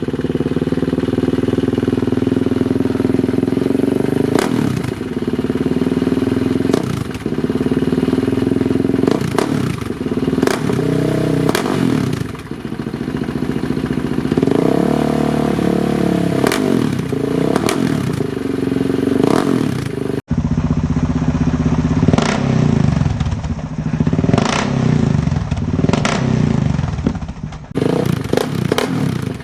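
2007 Polaris Outlaw 525's KTM-built single-cylinder four-stroke engine through a Big Gun EVO R slip-on exhaust. It is revving up and down over and over, the pitch climbing and dropping every second or two, with a sharp break about two-thirds of the way through.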